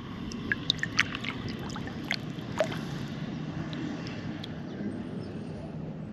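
Small splashes and drips of lake water around a hand holding a bass upright in the water, clustered in the first few seconds, over a steady low rumble.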